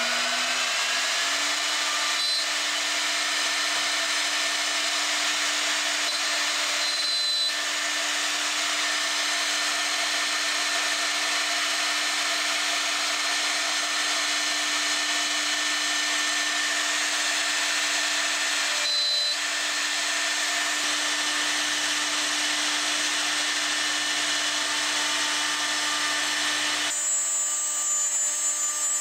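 Router with a dovetail bit spinning up with a rising whine, then running steadily at full speed. Near the end the bit is cutting into a wooden board.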